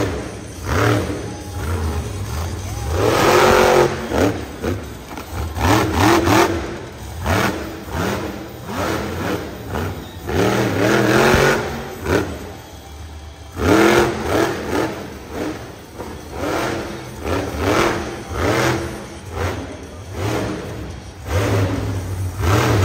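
Monster truck engine revved hard again and again, its pitch sweeping up and dropping back with surges every few seconds.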